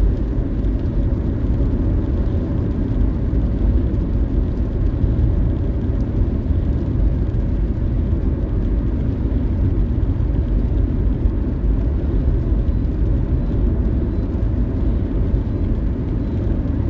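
Car being driven on the road: a steady low rumble of tyres and engine that holds even throughout.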